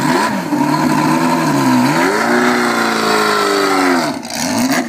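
1955 Alfa Romeo 1900's four-cylinder engine revving as the car moves off, its pitch rising and falling several times, dropping about two seconds in and again near four seconds before climbing once more.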